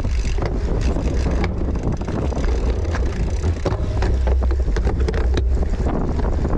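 Wind buffeting the microphone as a cyclocross bike is ridden at race speed, with a heavy low rumble and many short rattles and clicks from the bike over rough ground.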